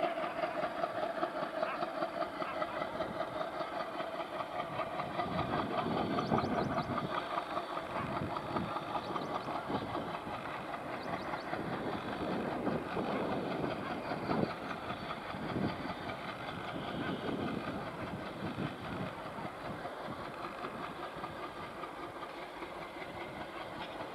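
WDM-3A Alco diesel-electric locomotive, with its 16-cylinder ALCO 251 engine, chugging steadily as it hauls a freight train, its exhaust beating in a fast, even rhythm.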